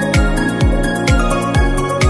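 Background electronic music with a steady kick-drum beat, about two beats a second, over sustained synth chords.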